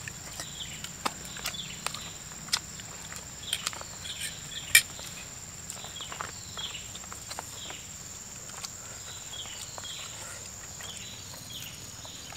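Wet lip smacks and chewing clicks from people eating by hand, with one sharper click a little under five seconds in. Under them runs a steady high insect drone, with repeated short falling bird chirps.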